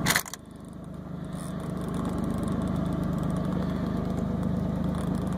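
A boat's outboard motor running steadily at low trolling speed, a low even hum. A sharp click sounds right at the start.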